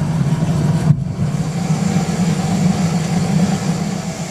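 Home-built oil-fired melting furnace firing, its burner fed by an electric blower, making a steady low rumble while cast iron melts.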